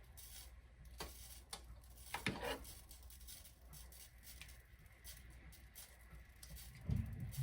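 Faint clicks and light scrapes of a small spoon working Alfredo sauce onto garlic bread, scattered and irregular, with a louder dull bump near the end.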